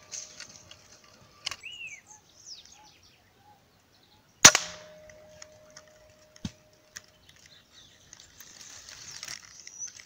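A single sharp rifle shot about four and a half seconds in, by far the loudest sound, with a smaller click about three seconds before it and a short knock about two seconds after. Faint bird chirps and a high insect-like hiss sound in the background.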